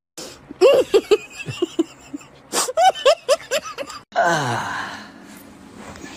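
A person laughing and gasping in short bursts, then a man's long groan that falls steeply in pitch, breathy and fading out.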